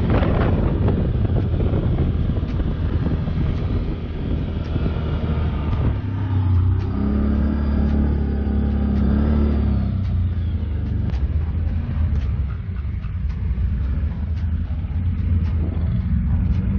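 ATV engine running while riding a trail, with the engine tone steadier and stronger for a few seconds midway. Scattered short knocks come from the machine in the later part.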